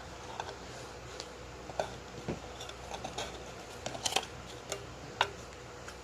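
Irregular light clicks and taps of trading cards and plastic card sleeves being handled, with a sharper tap about five seconds in.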